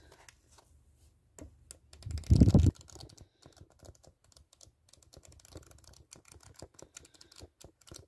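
Paper flipbook pages flicking off the thumb one after another, a rapid run of light clicks that goes on to the end. A loud thump from handling the book comes about two seconds in.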